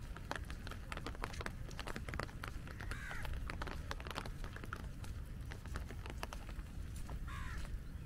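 Crows cawing, with two louder calls about three seconds in and near the end, over a steady patter of raindrops tapping on an umbrella.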